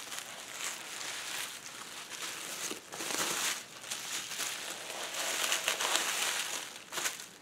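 Plastic bubble wrap crinkling and rustling in irregular swells as it is handled and pulled off a wrapped craft item.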